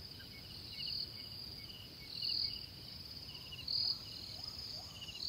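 Insects trilling steadily at a high pitch, swelling louder about every second and a half, with fainter pulsing trills underneath.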